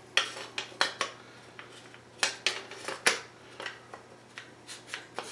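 Hard parts handled and set down: irregular clicks and clacks of AR-15 handguard pieces knocking together and against a surface, about ten in all, with small gaps between them.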